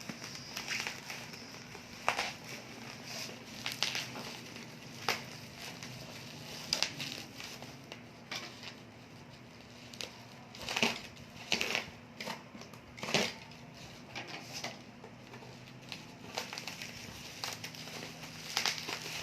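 Plastic packaging crinkling and crackling as it is handled and torn open, in irregular bursts with short pauses between.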